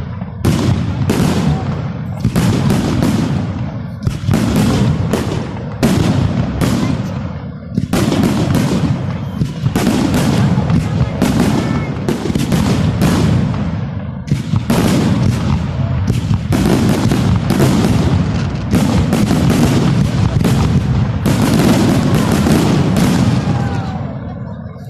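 Fireworks salute: a dense barrage of shells bursting one bang after another, fading away near the end.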